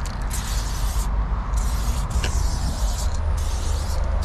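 Aerosol spray paint can hissing in several short bursts with brief breaks between, as silver paint is sprayed onto a metal fence. A steady low rumble runs underneath.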